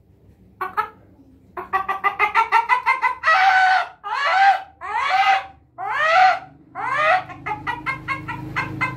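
A man imitating a chicken with his voice through cupped hands: quick clucking, then a run of loud squawks, then quick clucking again near the end.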